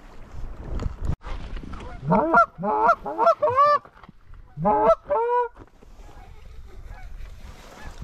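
Canada geese honking as an incoming flock approaches: four honks in quick succession about two seconds in, then two more a second later, each breaking sharply upward in pitch.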